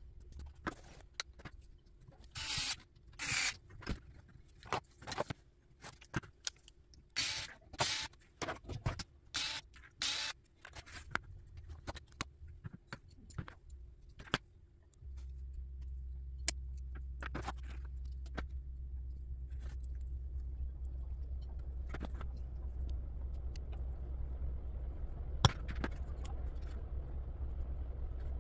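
Small RC car parts and hand tools being handled on a workbench: scrapes, rustles and clicks of plastic and metal pieces, with a light jangle of small metal parts. About halfway through, a steady low hum sets in under the occasional clicks.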